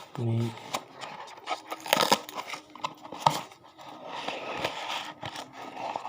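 Hands opening a mobile phone's packaging: irregular crinkling and tearing of cardboard, plastic and sealing stickers, with small clicks and taps.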